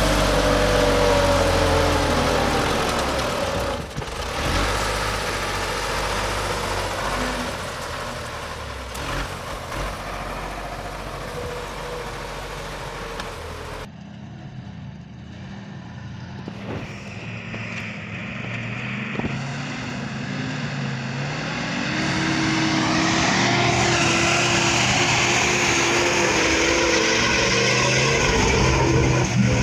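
A tractor's diesel engine running, its revs falling at the start. About halfway through, a loaded log truck's engine takes over, pulling through deep mud and growing louder toward the end.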